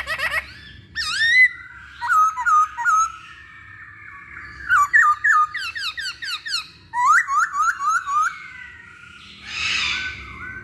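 Chinese hwamei (Poksay Hongkong) singing a varied song: quick runs of repeated slurred whistled notes, changing from phrase to phrase with short pauses between.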